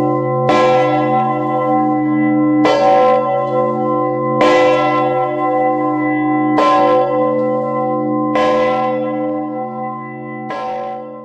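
Great Peter, Gloucester Cathedral's three-tonne medieval bourdon bell, struck six times about two seconds apart. Each stroke rings the same deep note, and a long low hum carries on underneath.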